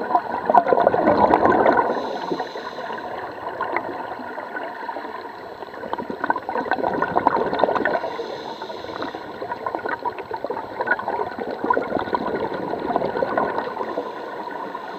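Scuba diver's exhaled bubbles gurgling and crackling underwater, swelling in louder bursts about every six seconds with breathing through the regulator.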